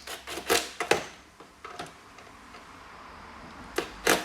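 Plastic parts of a Bissell carpet cleaner's handle being fitted and screwed together: a run of sharp clicks and knocks in the first two seconds, then a single click near the end.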